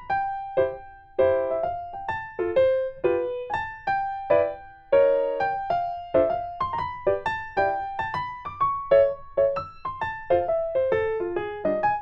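Background music: a light, bouncy melody on electric piano or keyboard, its notes struck and decaying several times a second.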